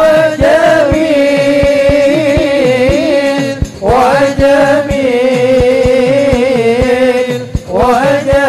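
Men's voices singing an Arabic sholawat (devotional praise of the Prophet) as a group, in long drawn-out ornamented phrases over a steady low drum beat. A new phrase sweeps in about four seconds in and again near the end.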